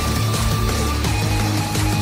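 Background music with a steady, heavy bass and held notes.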